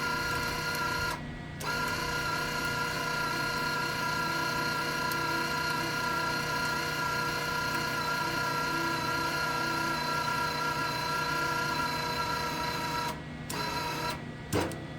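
Wire-feed welder's drive motor running as wire is fed back through the gun: a steady whine that pauses briefly about a second in and stops about 13 seconds in.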